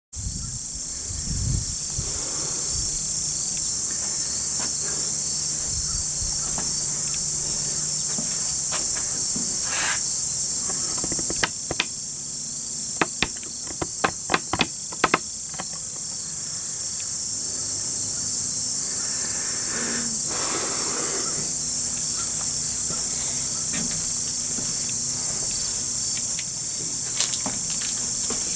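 Dense, steady high-pitched chorus of insects such as crickets, with a run of sharp clicks about halfway through.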